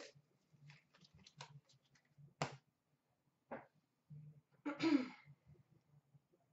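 Trading cards being handled: a scatter of light clicks and taps as cards are shuffled and set down, with a sharper tap about two and a half seconds in and another about a second later. A short breathy voice sound, like an exhaled sigh, comes about five seconds in.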